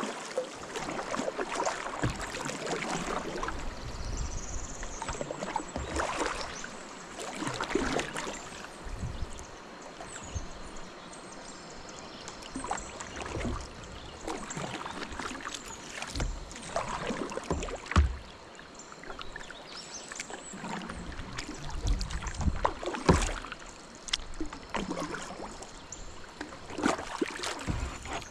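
Double-bladed kayak paddle strokes, the blades dipping and splashing into the river on alternate sides every couple of seconds at an uneven pace, with water running off the blades between strokes.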